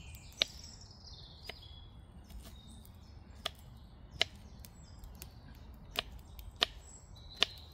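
About seven sharp clicks and taps at irregular intervals, over faint chirping of small birds.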